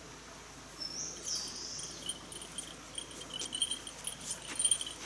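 A small bell on a walking angler's gear jingling in time with his steps, with footsteps crunching on a gravel road, growing louder toward the end as he comes closer. A short high chirp sounds about a second in.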